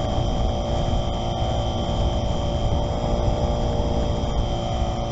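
Esky Eyas RC model plane's electric motor and propeller running steadily with a high whine, heard from a camera on the airframe, over a heavy low rumble as the plane taxis on grass.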